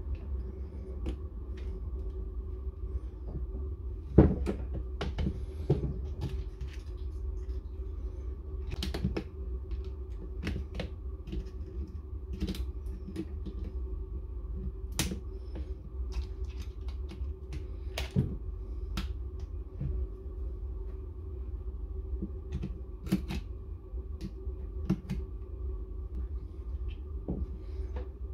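Irregular clicks, taps and knocks of small hard parts and hand tools being handled while a Dewalt D21570 core drill is worked on for a brush replacement, with one louder knock about four seconds in, over a steady low hum.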